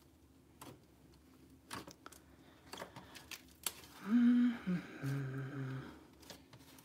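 Thick orange slime fluffed with Snow Wonder being kneaded and pulled by hand, making scattered sticky clicks and small pops. About four seconds in, a voice hums briefly for about two seconds, the loudest sound here.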